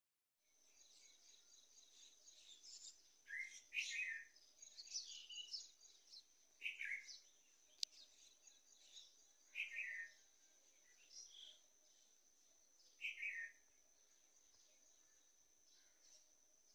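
Faint outdoor birdsong: several short chirps sliding downward in pitch and scattered smaller high calls, over a steady high-pitched whine. A single sharp click comes about halfway through.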